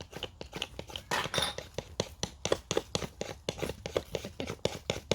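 Ferrocerium rod scraped hard and fast with a striker, a rapid series of sharp rasping strikes at roughly four a second, in a chopping motion.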